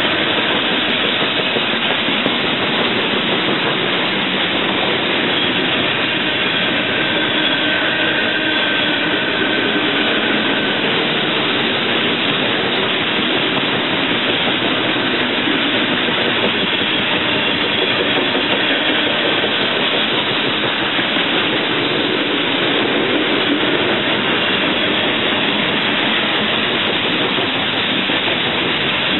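BNSF freight train of covered hopper cars rolling past close by: a loud, steady noise of wheels running on the rails that keeps up without a break.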